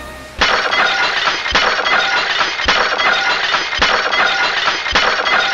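Glass shattering: a dense, continuous tinkling and crackling of breaking glass that starts about half a second in. A dull thud repeats roughly once a second.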